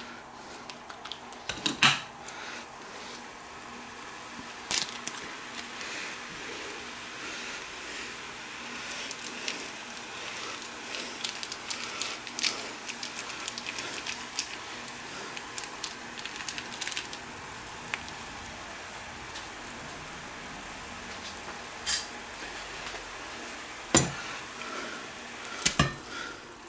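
Water hissing and simmering in a hot frying pan, with occasional clinks and knocks of a utensil and pot against the pan, including a couple of louder clanks near the end as noodles are tipped in from a saucepan.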